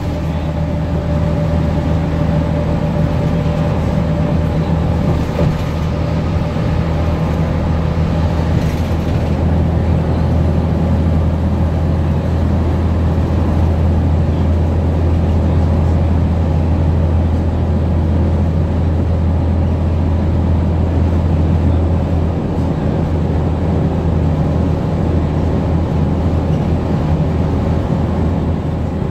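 Interior ride noise of a 2007 New Flyer D60LFR articulated diesel bus with a Cummins ISM inline-six diesel: a steady low engine drone with road and cabin noise, heard from inside the cabin.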